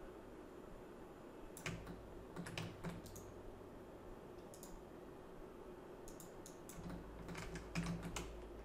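Faint, scattered clicks of a computer mouse, a few at a time, coming more often toward the end.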